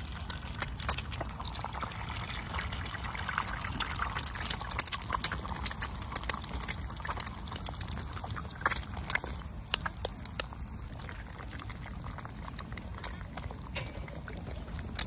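Eggs frying in oil in a cast-iron skillet on a hot wood stove: a sizzle with many sharp pops and spits, busiest in the first ten seconds and thinning out toward the end.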